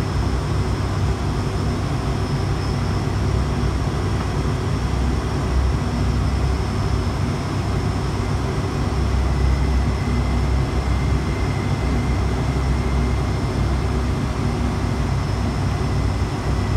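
Steady cockpit noise of an ATR 72-600 turboprop on final approach: a constant low drone from its twin Pratt & Whitney PW127M turboprop engines and propellers, mixed with airflow over the nose.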